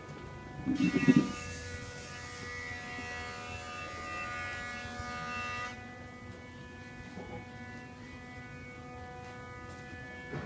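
A steady electrical buzzing hum with a stack of evenly spaced tones, like a small motor, runs throughout. A brief loud low bump comes about a second in, followed by a few seconds of rustling hiss.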